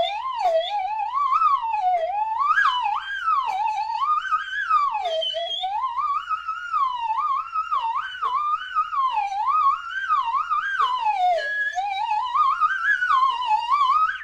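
Cartoon slide sound effect: a single pitched tone swooping up and down in pitch without a break, each rise or fall lasting about a second.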